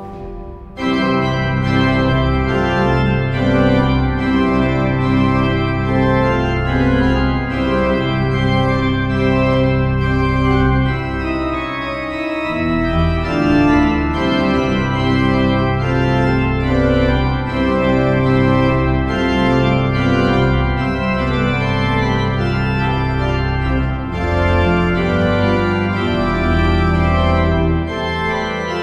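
Hauptwerk virtual pipe organ playing full sustained chords over a deep bass line. A held chord breaks off at the start and the playing resumes within a second.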